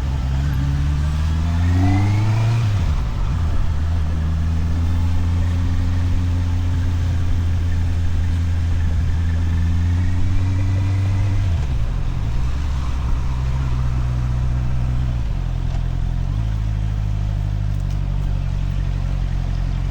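Motorcycle engine heard from the rider's helmet: revs rise for a couple of seconds, break at a gear change, then hold steady while cruising. About twelve seconds in the revs drop as it slows, with further steps down in engine speed near the end.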